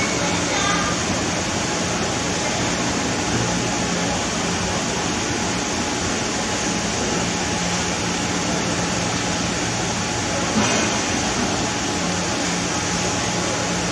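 Steady background din with a constant low hum running under it.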